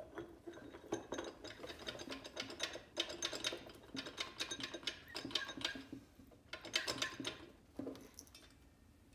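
Metal parts of a 4L60E automatic transmission clinking and rattling as the output shaft is pushed up into the case from underneath and worked into place, in a quick irregular run of small clicks with short pauses.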